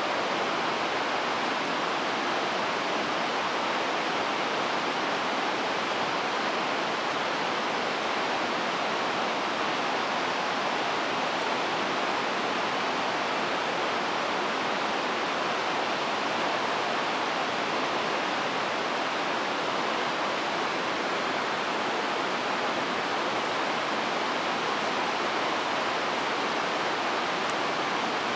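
Whitewater river rapids rushing in a steady, unchanging hiss.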